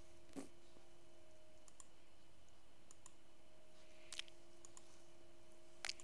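A few scattered, quiet computer mouse clicks, the sharpest about four seconds in, over a faint steady hum.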